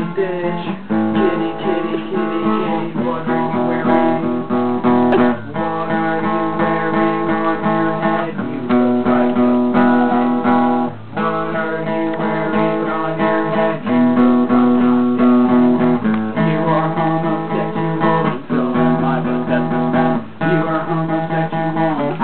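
Guitar strummed steadily, the chords changing every second or two.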